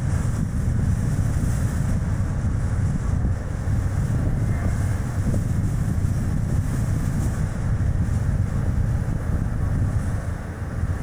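Strong wind buffeting the microphone over the steady road noise of a Chevrolet Spark light car driving, a continuous low rumble.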